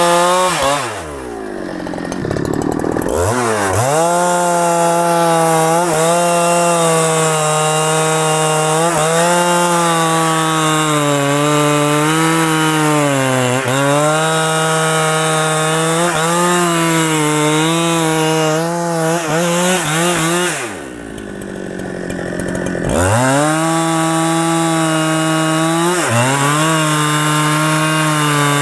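Two-stroke chainsaw running at high revs as it cuts into the trunk of a large rain tree, its pitch sagging and recovering with the load of the cut. Twice, about a second in and again about three-quarters of the way through, the engine drops back toward idle for a couple of seconds and then revs up again.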